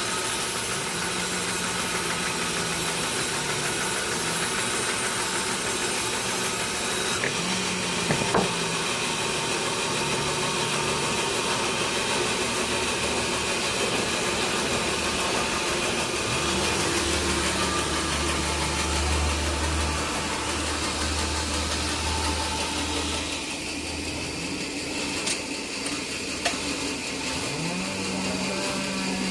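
Engine-driven sawmill machinery running steadily, its engine note shifting up and down in pitch, with a few sharp knocks about eight seconds in.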